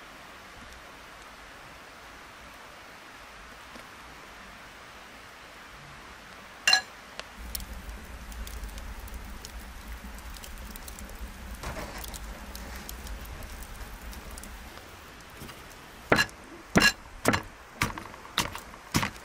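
A single sharp metallic clink, then a wood fire burning in a clay oven with a low rumble and a few crackles. Near the end, a run of about six sharp knocks, a little over half a second apart, as a knife is stabbed into a raw marinated lamb and strikes the metal tray beneath it.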